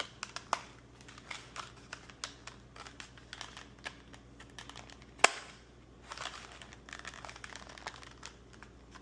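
Plastic packaging crinkling and small plastic parts of a toilet repair kit clicking as they are handled, with one sharp click about five seconds in.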